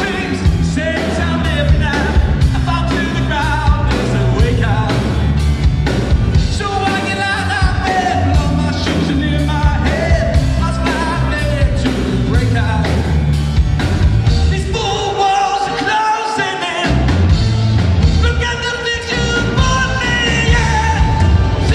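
Live rock band playing: electric guitars, bass and drum kit under a lead vocal. The bass and drums drop out for about a second roughly two-thirds of the way through, then come back in.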